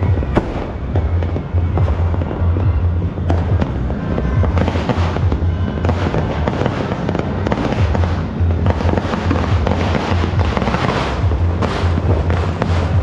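Firecrackers and fireworks going off all over a neighbourhood: a dense, continuous crackle of many overlapping bangs and pops.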